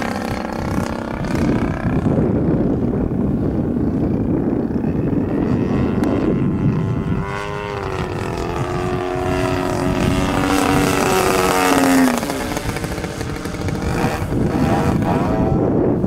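A prototype CRRC Pro GP50R 50cc two-stroke gas engine swinging a 23x7 propeller on a radio-controlled model plane in flight. Its note rises and falls with throttle and passes, climbing to a high pitch about twelve seconds in and then dropping away. The owner finds the engine a little rich at the low end.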